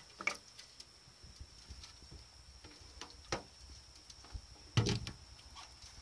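Scattered light taps and knocks of small turtles' claws and shells against the walls of a plastic tank, the loudest about three and five seconds in, over a faint steady high-pitched whine.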